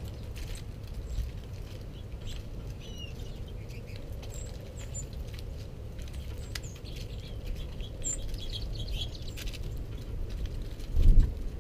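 Small songbirds feeding on seed on a snow-covered table: light scattered tapping from pecking, with a few short, high chirps, over a low steady rumble. A brief low thump comes just before the end.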